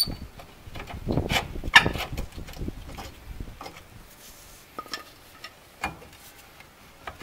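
Steel pry bar scraping and knocking against the rusted rear brake drum of a 1955 Pontiac Chieftain as the drum is pried loose from the hub. The scraping and knocking are densest in the first two seconds, then thin out to scattered metallic clinks.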